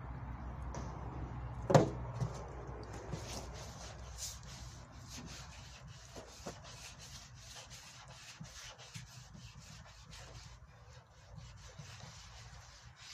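Hand sanding of primer-filler on a Peugeot 203's front wing: a sanding block rubbing the panel in repeated short strokes. There is one sharp knock about two seconds in.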